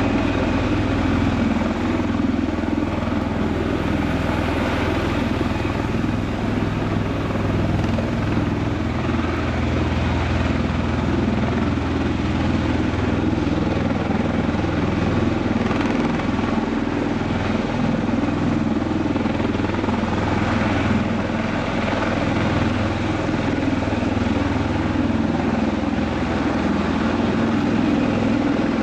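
MV-22 Osprey tiltrotor hovering in helicopter mode, its two large rotors and turbine engines running steadily and loudly with a deep, even rotor sound.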